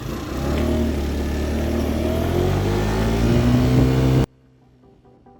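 Baotian Comfort scooter's 50cc four-stroke GY6 (139QMB) engine revving, its pitch rising steadily, then cut off suddenly about four seconds in.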